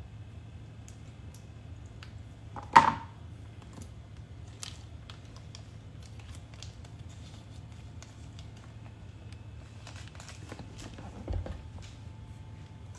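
Faint rustles and small clicks of hands handling a small item, over a steady low hum. There is one sharp loud sound about three seconds in and a low thump near the end.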